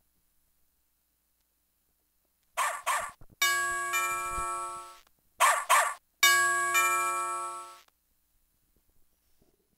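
Electronic sound effects from a Fisher-Price Little People toy train set's speaker: a recorded dog barks twice, then a bell rings and fades away. The sequence plays twice.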